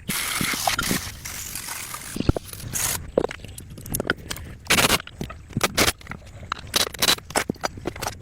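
Irregular scraping with scattered knocks and clicks, and a few longer rasping bursts in between.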